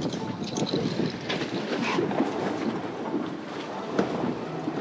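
Wind buffeting the microphone over the steady rush of a boat at sea, with a few light knocks.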